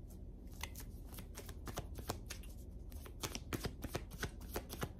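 A tarot deck being shuffled by hand: a faint, irregular run of soft card clicks and slaps that gets busier after about a second and a half.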